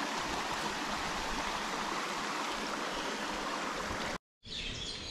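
Rainforest creek water rushing steadily. About four seconds in the sound cuts out for a moment and a quieter stretch follows, with faint bird chirps.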